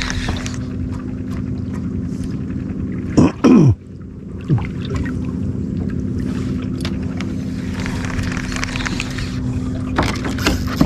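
Steady hum of a boat's motor with a low held tone. About three seconds in, a brief loud sound sweeps downward in pitch.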